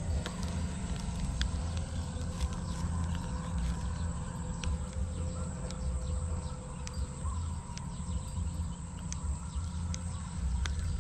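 A steady low rumble of wind and handling on a body-worn microphone, under a faint, steady, high-pitched insect drone, with scattered small clicks.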